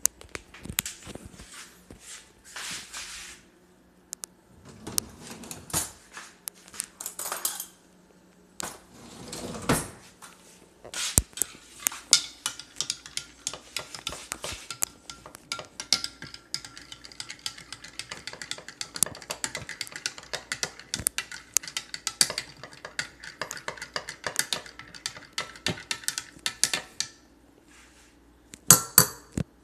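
A spoon stirring chocolate milk made from Nesquik powder in a drinking glass: quick, continuous clinking against the glass, with a faint ringing, for about fifteen seconds from near the middle, stopping shortly before the end. Before it come scattered knocks and short scraping sounds of the powder can, spoon and glass being handled.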